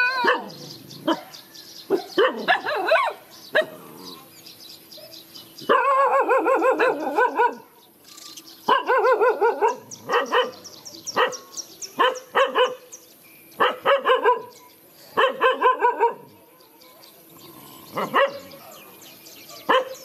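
Dogs barking in high-pitched yaps, fired off in quick volleys that come every second or two with short pauses between.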